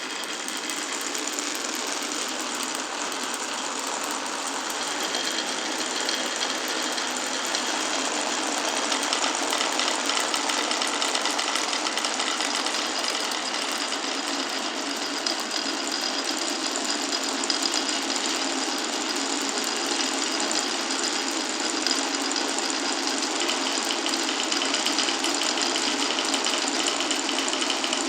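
Many glass marbles rolling and clattering through a marble run of wooden blocks and rails: a dense, continuous rattle that grows a little louder over the first ten seconds.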